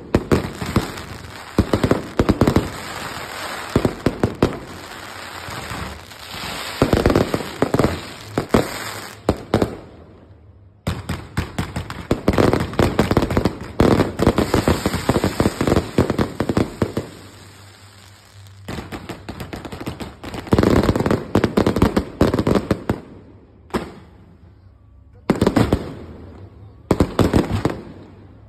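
Fireworks going off close by in rapid volleys of sharp bangs and crackles. A few short lulls break the volleys.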